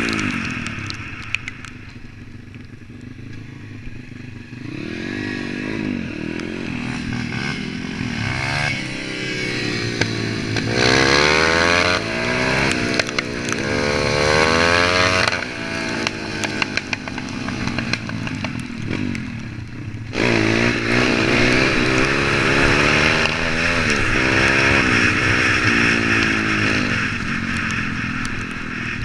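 Pit bike's small single-cylinder four-stroke engine under riding load, revving up through the gears again and again and dropping back between runs. A steady rushing noise of wind and tyres runs along with it.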